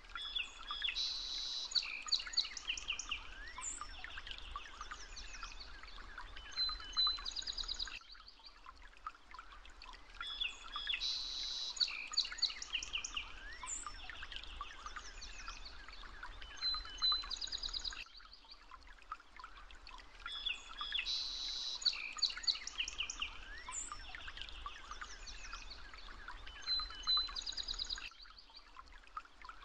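Birds chirping and trilling over a faint steady hiss, the same stretch of birdsong repeating about every ten seconds like a looped recording.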